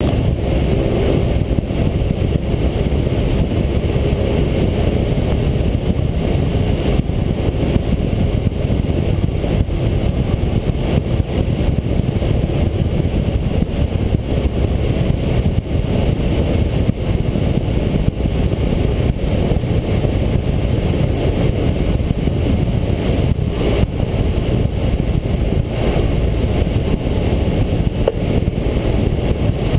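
Single-engine light aircraft's piston engine and propeller droning steadily, heard from inside the cockpit.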